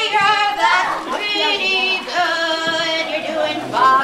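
Children and women singing a slow tune together, the voices holding long notes.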